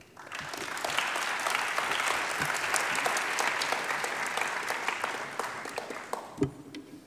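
Audience applauding: the clapping starts right after the talk ends, holds for a few seconds, and fades out about six seconds in.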